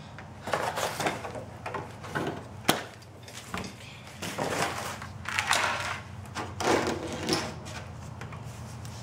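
Scissors snipping and cardboard and plastic packaging rustling and scraping as a mini basketball backboard is cut free and handled, in irregular bursts with a sharp click nearly three seconds in.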